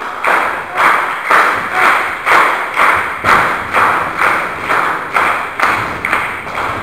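Small wrestling crowd clapping in unison, about two claps a second, echoing in a sports hall.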